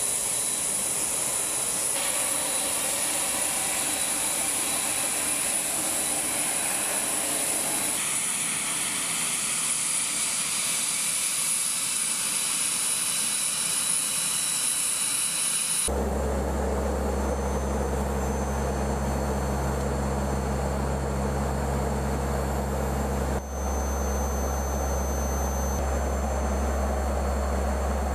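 C-130H Hercules turbine whine on the ramp, a steady high-pitched whine with fixed high tones. About halfway through it cuts to the steady low drone of the aircraft's four T56 turboprop engines, heard from inside the cockpit.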